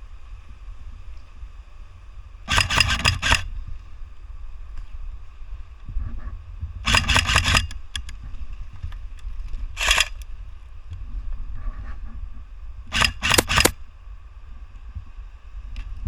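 Airsoft guns firing four short bursts of rapid clicking shots, about three to four seconds apart, over a steady low wind rumble on the microphone.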